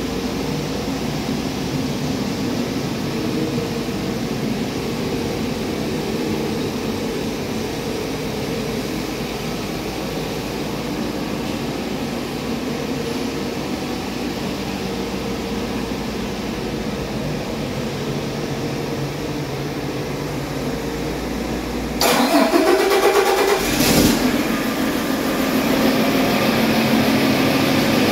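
Paccar MX13 inline-six diesel engine starting about three-quarters of the way through: a sudden loud burst, the pitch sweeping up as it catches, then running steadily and louder. Before the start there is a steady, quieter hum.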